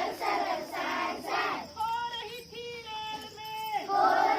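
A group of children singing a Hindi children's song in chorus. It begins as rough shouted chanting, and about two seconds in moves to held sung notes.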